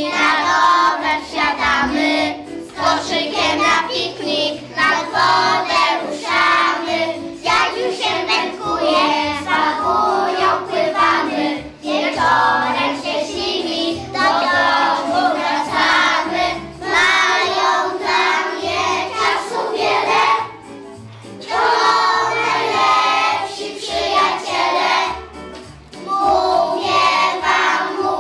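A group of young children singing a song in unison over instrumental accompaniment, with short breaks between the sung lines.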